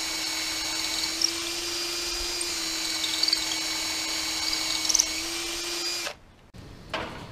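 Cordless drill driver running at a steady speed, drilling a pilot hole into the wood of a pallet wall overhead; the motor's whine holds one pitch and cuts off abruptly about six seconds in.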